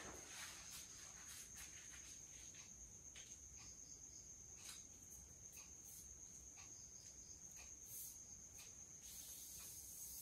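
Near silence: room tone with a faint steady high-pitched whine and a few faint scattered clicks and rustles as a paper chart is handled and fixed to the wall.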